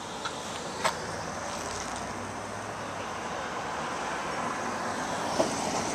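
Street traffic noise: a steady wash of passing vehicles that grows a little louder toward the end, with a sharp click about a second in and another near the end.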